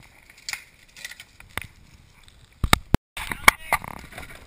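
Downhill mountain bike rattling down a rocky dirt trail: scattered clicks and knocks from the tyres and bike over rocks and roots, with two heavy thumps a little before the sound cuts out briefly.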